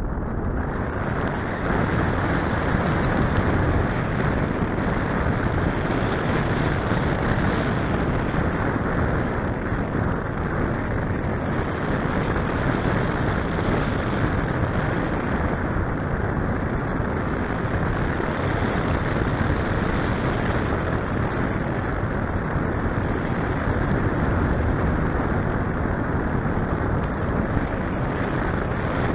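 Steady rush of airflow buffeting the microphone of the camera riding on a Parkzone Radian RC sailplane as it glides, with no motor whine.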